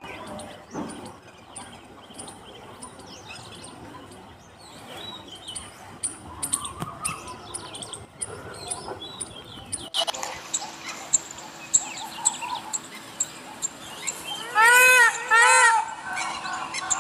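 Indian peafowl giving two loud honking calls in quick succession near the end, over small birds chirping faintly in the background.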